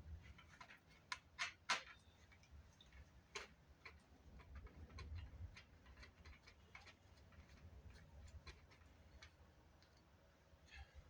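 Light clicks and taps of small plastic parts and tools being handled while a Fostex MR8 multitrack recorder is taken apart: a few sharper clicks in the first two seconds, then scattered faint ticks.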